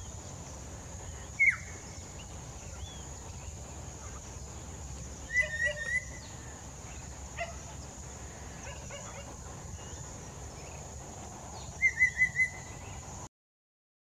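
Collared palm-thrush singing: short whistled phrases spaced a few seconds apart, the last a run of four quick repeated notes, over a faint steady hiss and low hum. The sound cuts off abruptly near the end.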